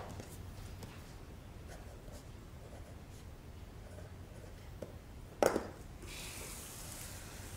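Pen writing on a small notepad on a table, faint scratching, with one sharp knock on the table about five and a half seconds in.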